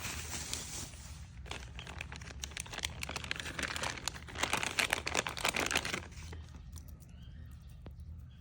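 Watch packaging crinkling as it is handled and unwrapped: a dense run of crackles, loudest around four to six seconds in, that stops about six seconds in.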